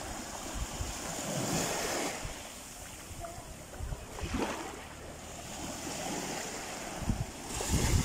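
Small sea waves washing up over a sandy shore and draining back, in swells a few seconds apart. A few low thumps come near the end.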